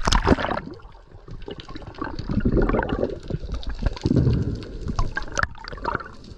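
Water splashing and sloshing: a sharp splash right at the start, then two heavier sloshing surges about two and four seconds in, with small knocks between.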